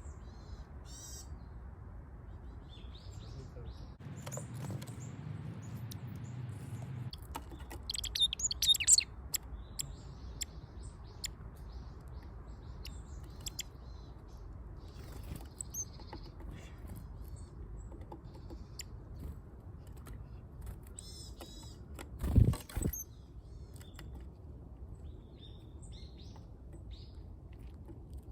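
Small songbirds chirping and calling in short scattered bursts over a steady outdoor background, with two loud knocks about three-quarters of the way through.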